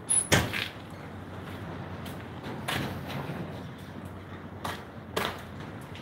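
A door banging shut with a loud bang, followed by a few lighter knocks and rattles.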